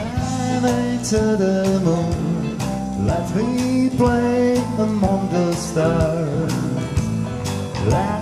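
A live band playing a song: a man singing over keyboard, drums and electric guitar.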